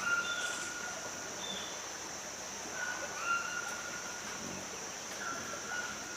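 Forest ambience: birds calling in long, level whistled notes, several times, over a steady high-pitched drone.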